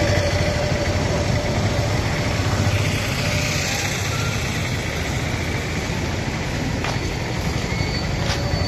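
Steady low rumbling noise with no clear breaks.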